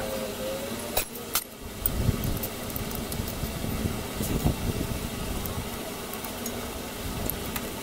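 Two sharp metallic clicks about a second in as a spanner goes onto a gearbox-mount bolt, then low, uneven rumbling noise with a few faint ticks.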